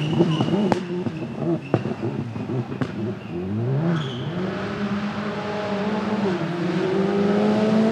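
Rally car engine under load: the revs dip and climb back about halfway through, then rise steadily as the car accelerates. A few sharp cracks sound in the first three seconds.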